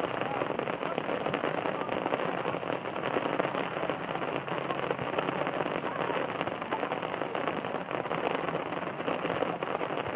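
Steady rain falling, a dense even hiss of many small drop ticks at a constant level.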